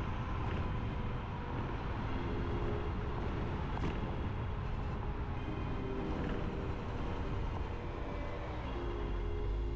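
Steady wind rush and tyre rumble while riding an electric scooter at about 20–25 mph, picked up by a GoPro Hero 11's microphone with wind reduction on.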